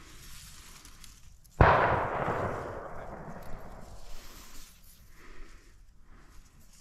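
A single deer-hunting gunshot about one and a half seconds in, cracking out and then echoing away over a couple of seconds: a shot at a deer running past. Faint rustling of dry grass follows.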